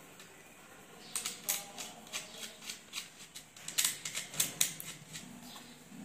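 Handling noise from stiff insulated wires and a plastic wall switch being worked by hand: an irregular run of sharp clicks and scrapes that starts about a second in and is loudest a little past the middle.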